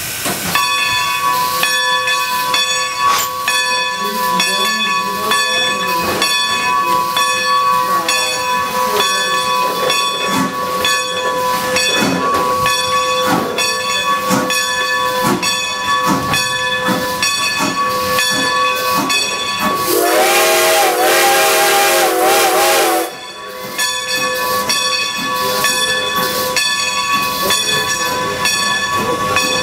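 Baldwin steam locomotive No. 90 hissing steadily with escaping steam, over regular sharp beats about twice a second. About two-thirds of the way through, its steam whistle blows loudly for about three seconds.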